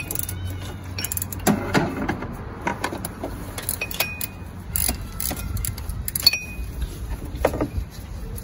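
Irregular metallic clicks, clinks and knocks of a wrench working a compressor mounting bolt loose in the engine bay, with a short metallic ring twice, over a steady low hum.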